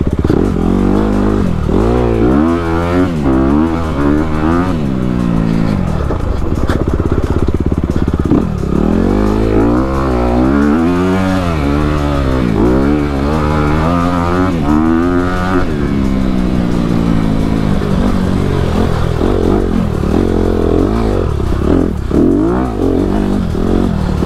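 2019 Honda CRF250RX's single-cylinder four-stroke engine being ridden hard, its pitch rising and falling over and over as the throttle is opened and closed.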